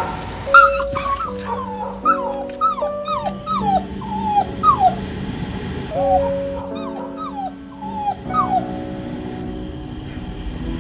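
A puppy whimpering in a long run of short high cries, each dropping in pitch, over soft background music with held notes; the cries thin out near the end.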